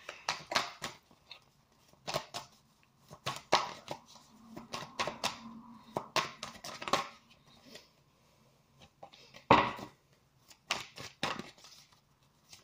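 A deck of tarot cards being shuffled and handled by hand: a run of quick papery flicks and slaps at irregular spacing, with one louder thump about nine and a half seconds in.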